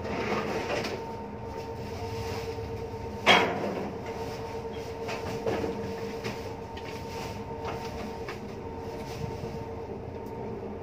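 Steady hum of a ship's machinery with a constant tone, broken by one loud sharp knock about three seconds in and a lighter knock a couple of seconds later.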